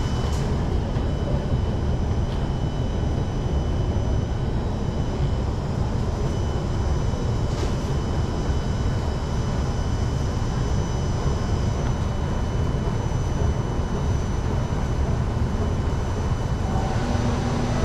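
Steady low rumble and hum of a Singapore MRT train standing at an underground platform with its doors open: the carriage's air-conditioning and the station's ventilation, with a faint steady whine above. A pitched tone starts just before the end.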